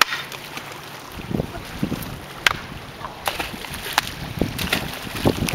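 Loose shoreline stones clacking against each other a handful of times, sharp separate clicks, as rocks are picked up and stepped on across a cobbled lakeshore.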